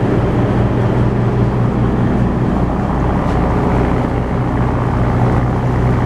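Ferry's engines running under way as the boat pulls away from the pier: a loud, steady low drone with a deep rumble beneath it.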